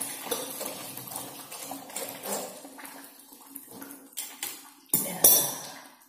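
Water splashing out at the water heater's pipe connection, flushing out dirt, mixed with small clinks from the metal fittings being handled. Two loud knocks come close together about five seconds in, and the splashing fades toward the end.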